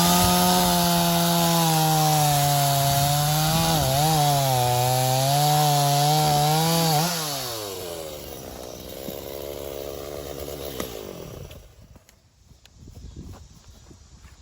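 Gas-powered two-stroke chainsaw running at full throttle through wood, its pitch dipping and recovering as the chain loads up in the cut. About seven seconds in the throttle is released and the engine falls to a low idle, then goes quiet near the end.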